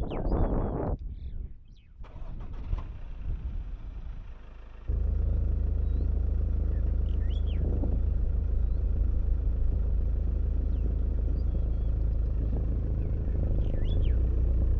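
Steady low rumble of a vehicle on the move, starting abruptly about five seconds in, with a few short bird chirps heard over it.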